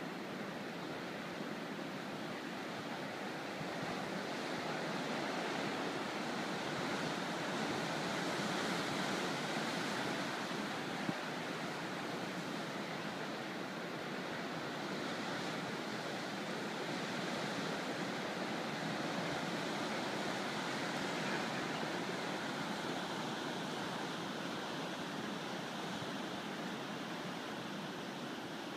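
Ocean surf breaking on rocks and sea stacks: a steady rushing wash that swells a little about a third of the way in and again past the middle. A single brief click is heard near the middle.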